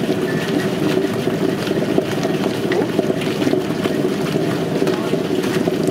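Tabletop wet grinder running steadily, its stone roller grinding thick wet batter in the turning stone drum.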